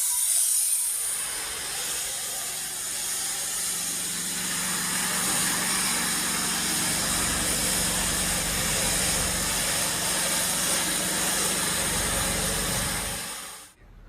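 Airless paint sprayer spraying paint: a steady hiss from the spray tip with a low hum underneath, stopping near the end as the trigger is released.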